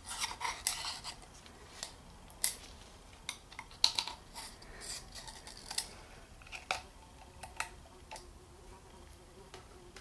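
Irregular light clicks, taps and scrapes of a metal pick and gloved hands on a plastic oil filter housing cap, working the old O-ring gasket off it.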